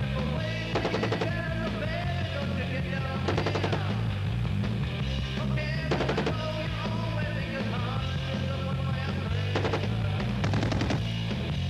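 Heckler & Koch G3 rifle firing 7.62 NATO in short fully automatic bursts, about five bursts in all, over a rock music backing track.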